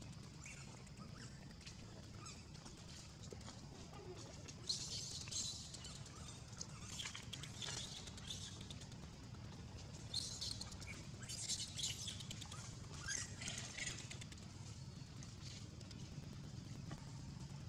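Scattered short, high-pitched animal chirps and squeaks, clustered about five seconds in, again around seven to eight seconds, and through ten to fourteen seconds, over a faint low steady hum.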